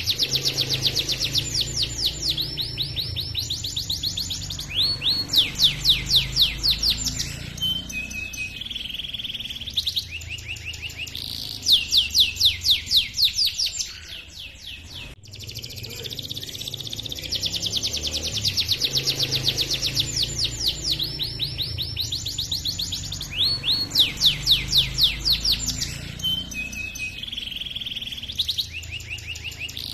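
Domestic canary singing a long rolling song: fast trills of repeated sweeping notes, changing from one trill to the next, with a brief lull about halfway through. The same stretch of song then repeats.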